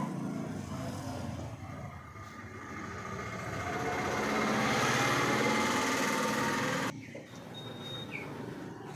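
A motor engine's noise swells over a few seconds, peaks, then cuts off suddenly about seven seconds in, followed by a brief faint high tone.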